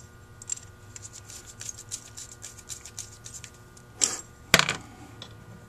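Screwdriver working a small brass plug into a Holley 1904 carburetor float bowl casting: light metal clicks and scrapes, with two sharper clicks about four seconds in.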